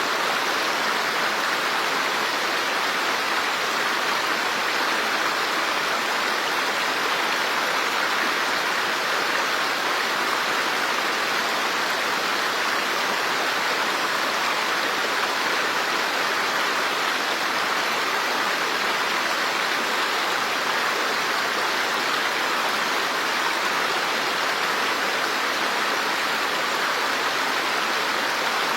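Running water rushing steadily: an even hiss with no separate drops or splashes standing out.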